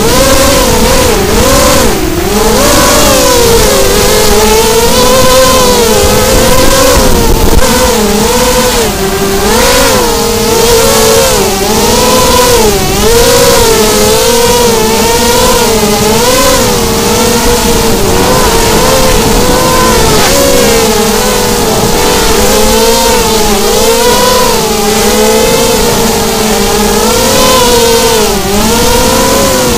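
FPV miniquad's brushless motors and propellers whining, the pitch constantly rising and falling with the throttle, with steady airflow hiss.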